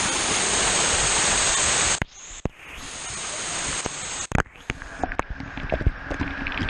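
Water pouring and splashing right onto a waterproof action camera: a loud, even rush that cuts off suddenly about two seconds in. After that come quieter, muffled splashes with scattered knocks of water hitting the camera.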